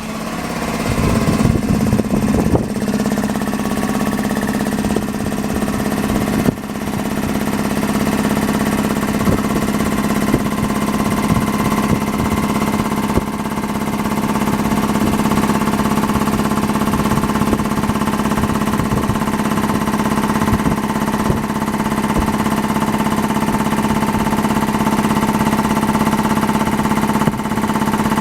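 Hitachi Bebicon 1.5P-9.5V air compressor starting up and running: it comes up to speed over the first second or two, then runs steadily with a loud low hum and scattered short clicks.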